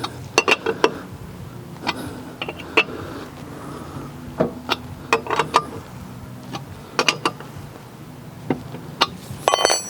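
Lug wrench clinking and knocking on the lug nuts as they are tightened on a wheel resting on the ground, in irregular sharp metal knocks with a brief metallic ring near the end. A steady low hum runs underneath.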